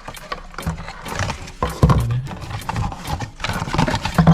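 Irregular clicks and knocks of a plastic toy figure and its packaging being handled.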